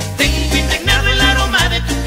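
Mexican cumbia music in an instrumental passage without singing: a steady, repeating bass line under a lead melody with vibrato.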